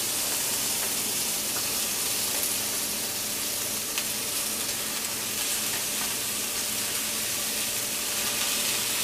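Sliced bell peppers sizzling steadily in hot olive oil and garlic in a stainless steel frying pan as more strips are dropped in by hand.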